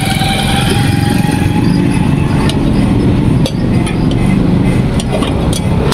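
Steady vehicle engine and traffic noise, with a few light metallic clinks.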